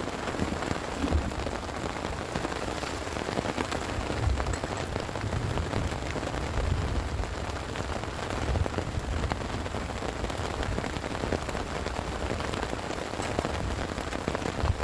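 Heavy rain falling steadily, a dense patter of drops on a surface, with low gusty rumbles underneath.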